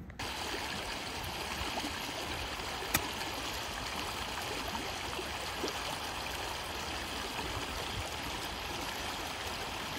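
Steady rush of running water, with a single sharp click about three seconds in.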